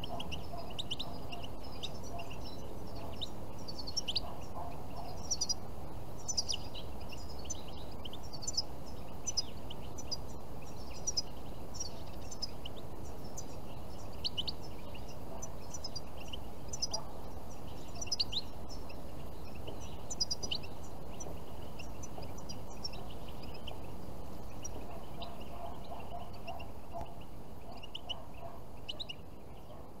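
European goldfinches calling, a run of quick high twittering chirps coming thick and fast, over a steady low background rumble.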